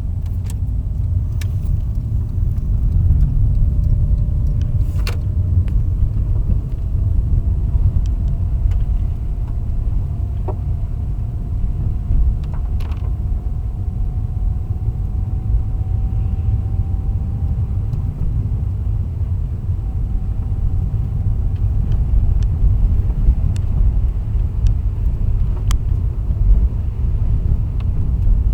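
Lada Kalina on the move: a steady low road rumble with a faint whine slowly rising in pitch, broken by scattered sharp knocks at irregular moments, the suspension knock the car is being recorded for.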